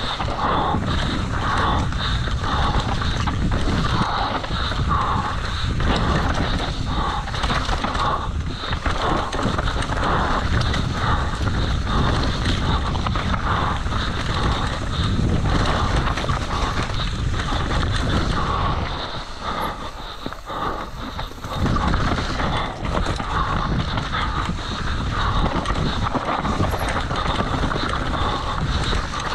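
Mountain bike ridden fast down a rough dirt trail: continuous rolling and rattling noise from tyres and bike, easing off for about two seconds about two-thirds of the way through.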